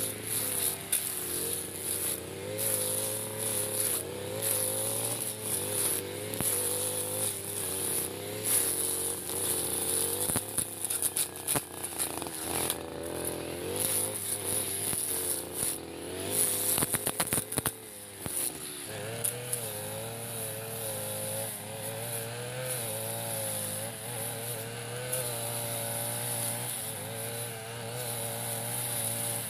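Backpack brush cutter running with a metal blade, its engine pitch wavering up and down as it cuts through thick grass. A flurry of sharp clicks comes near the middle, and the engine dips briefly before running steadily again.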